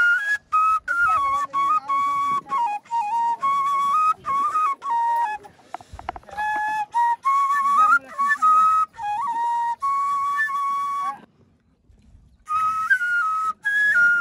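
Background music: a solo flute playing a slow melody of held notes and short stepping runs, with a pause of about a second near the end.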